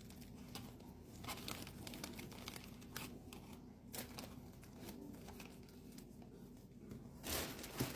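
Faint crinkling and rustling of a plastic shopping bag with light clicks as groceries are handled, growing louder near the end.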